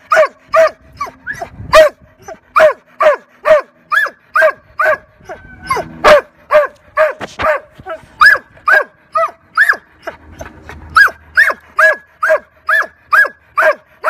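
A nervous Labrador Retriever barking over and over, about two barks a second, each bark dropping in pitch, with a short pause about ten seconds in.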